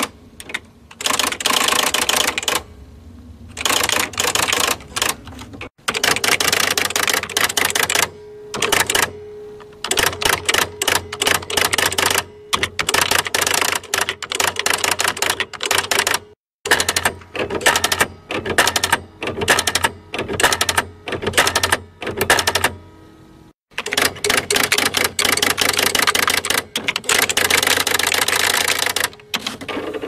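Electric typewriter being typed on: quick runs of key strikes in bursts of a second or more, broken by short pauses, over the steady low hum of the machine running.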